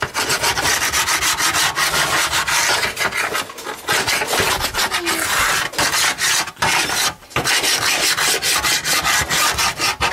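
A spatula scraping and rubbing at baked-on oven grime softened with a baking powder paste, in quick, continuous strokes with a few brief pauses.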